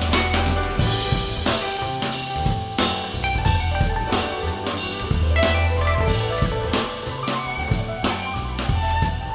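Instrumental band music played back through an in-ear monitor: a drum kit keeping a steady beat with snare hits over a deep bass line and sustained instrument notes.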